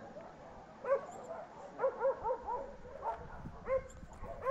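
A dog yipping in short, high, arching barks, about seven in all, with a quick run of four around two seconds in.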